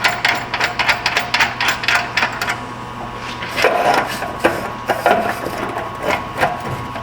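Hand ratchet clicking rapidly as an exhaust clamp nut is run down, then slower, separate clicks and knocks from about three seconds in as the clamp is snugged up.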